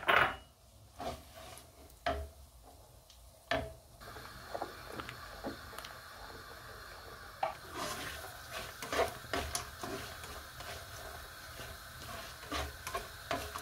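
A spoon stirring milk in a stainless steel saucepan, knocking and scraping against the pan, with scattered clinks that come thicker in the second half. A steady faint hiss sets in about four seconds in.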